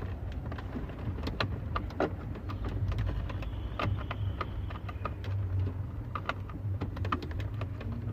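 Irregular clicks and knocks of plastic dashboard trim and the climate-control panel being lined up and pushed back into a car's dash, over a low steady hum.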